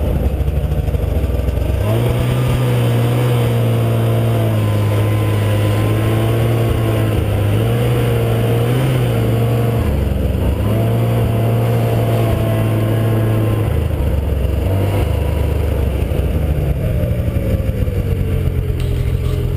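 Snowmobile engine running under throttle as the sled is ridden along a snow trail. Its pitch drops briefly about halfway through and again a few seconds later, then climbs back up.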